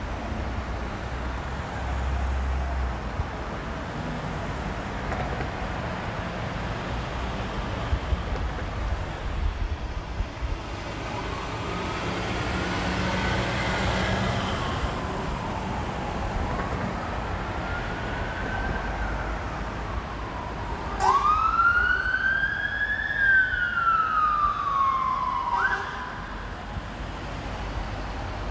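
Fire engine siren in a slow rising and falling wail. It is faint at first, then a loud wail starts suddenly about two-thirds of the way in, climbs, falls away and cuts off. A low engine and traffic rumble runs underneath.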